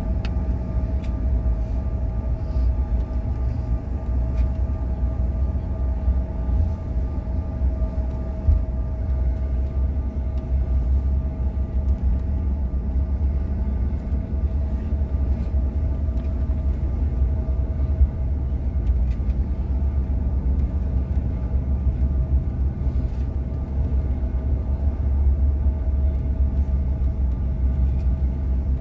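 Cabin noise inside a CRJ900 regional jet taxiing: a steady deep rumble from the rear-mounted turbofan engines and rolling wheels, with a steady engine whine above it. Twice there is a brief light bump.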